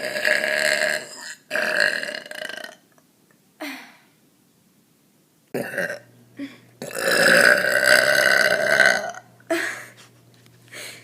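A woman burping loudly again and again: a long, drawn-out belch at the start and another about seven seconds in, with shorter burps between and after.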